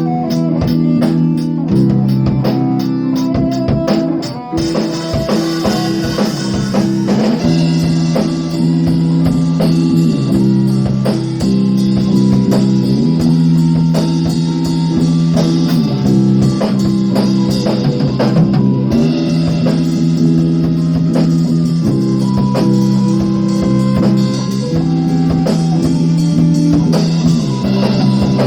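A band playing instrumental rock music: a drum kit keeps a steady beat under guitar and sustained chords that change every two to three seconds.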